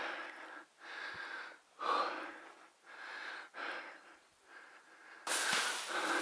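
Fast, heavy breathing of a man tired from wading through a marsh, breaths coming every half second or so. About a second before the end a louder steady rustle sets in.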